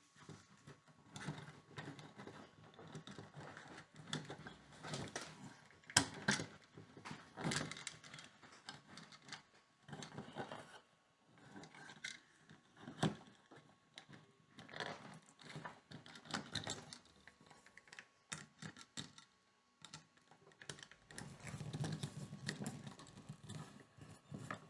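Handling noise of electrical wires being folded and pushed into a wall switch box behind a dimmer switch: irregular rustling, scraping and small clicks, with sharper clicks about six and thirteen seconds in.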